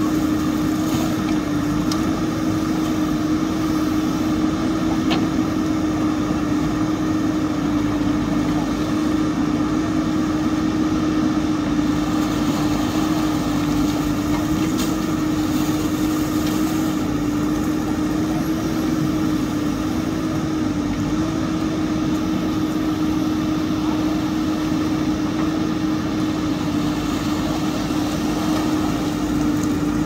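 JCB 3DX backhoe loader's diesel engine running steadily under load while its backhoe arm digs, with a constant droning hum that wavers only slightly in pitch.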